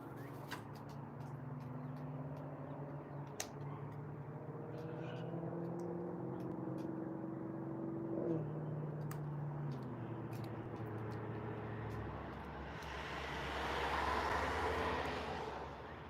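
A passing motor vehicle: a low engine hum that shifts pitch about eight seconds in, then a rush of tyre and road noise that swells and fades near the end.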